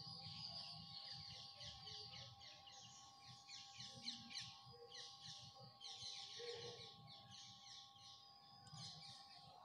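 Faint pencil scratching on drawing paper in quick short strokes, coming in bursts, as fruit outlines are sketched.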